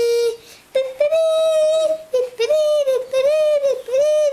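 A child's high voice singing wordless notes. A long held note starts about a second in, followed by a run of shorter notes that each arch up and down in pitch.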